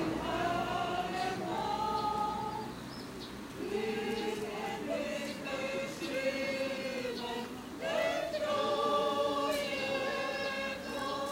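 A mixed choir of men's and women's voices singing, in phrases of long held notes, with a brief softer lull about three seconds in.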